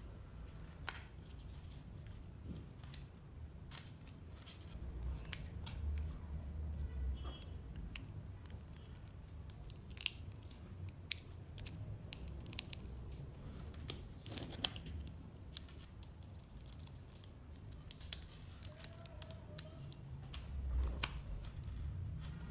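Scattered light clicks and taps with low thumps of handling, as a small plastic hobby servo and laser-cut wooden kit parts are fitted together and a screwdriver drives a small screw to fix the servo to a wooden plate.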